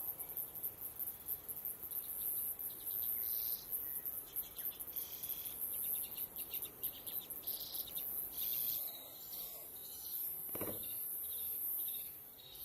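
High-pitched, pulsing shrill of insects in summer, with a few short bird calls mixed in around the middle and a single dull knock near the end.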